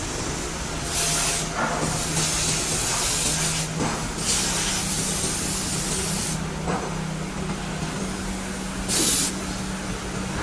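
Six-sided CNC drilling machine running, with a steady motor hum under several loud hisses of compressed air from its pneumatics, one lasting about two seconds.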